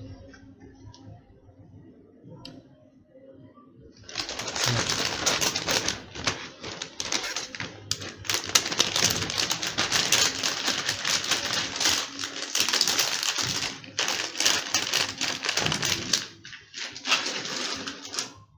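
Dense crackling rustle of parts and packaging handled close to the microphone, starting about four seconds in, stopping briefly near the end, then a short last burst.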